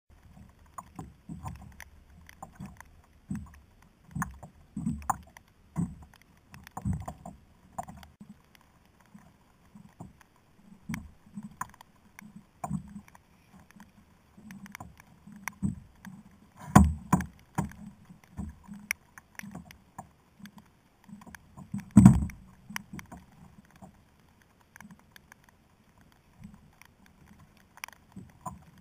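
Irregular knocks and slaps of water and gear against a sit-on-top fishing kayak's hull, picked up by the kayak-mounted camera, with two louder thumps in the second half.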